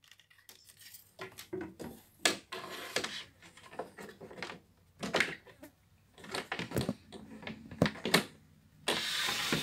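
Irregular clicks, knocks and rattles of the back cover being handled and fitted onto a vintage Philips Philetta valve radio's cabinet, with a burst of scraping near the end.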